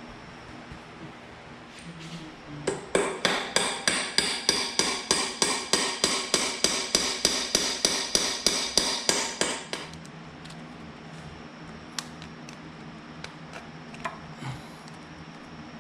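A hammer striking metal in a fast, even series of blows, about three to four a second, lasting about seven seconds and each ringing briefly. A few single light knocks follow near the end.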